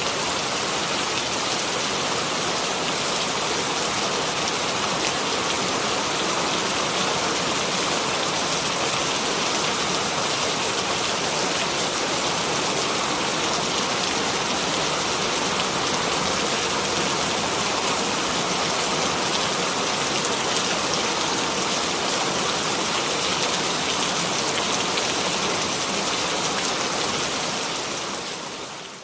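Light, calm rain falling steadily: an even hiss of fine drops, with faint individual drop ticks. It fades out near the end.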